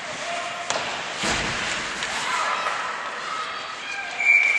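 Ice rink game sounds: a heavy thud of stick, puck or player against the boards about a second in, with spectators' voices. Near the end comes a short, loud, high referee's whistle blast stopping play.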